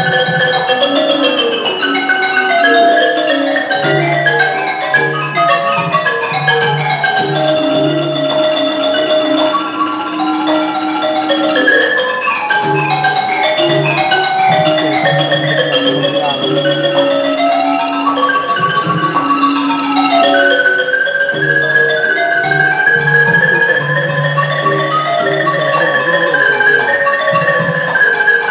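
Ranat ek, the Thai boat-shaped xylophone, played solo in fast running notes with rapid rising and falling runs. A thon goblet drum accompanies it, and small ching hand cymbals tick a steady beat.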